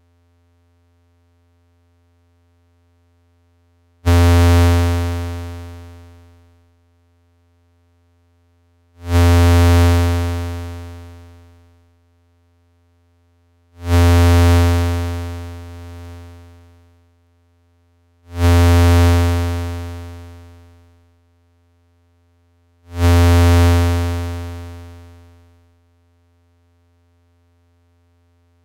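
Eurorack synthesizer voice: a low, buzzy tone at one repeated pitch, shaped by a Make Noise Contour envelope in four-stage attack-decay-sustain-release mode. Five notes a few seconds apart, each starting suddenly and fading out over two to three seconds; the third holds briefly at a sustain level before it releases.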